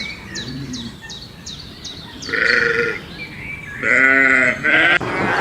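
Bleating livestock: three loud, wavering bleats, the first about two seconds in and the last two close together near the end.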